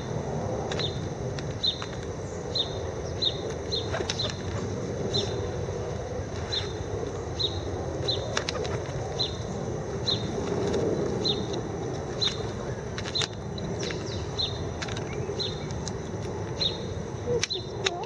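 Pigeons and doves flapping their wings and moving among scattered peanuts, with occasional sharp taps. Over this, a small bird gives a short high chirp about once or twice a second, against a steady low background hum.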